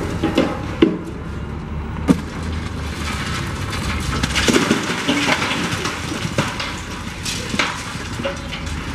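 Brick and concrete debris crashing and crumbling as a multi-storey building is torn down, with a few sharp cracks in the first two seconds and a continuous crunching clatter after them. A steady low rumble of heavy equipment runs underneath.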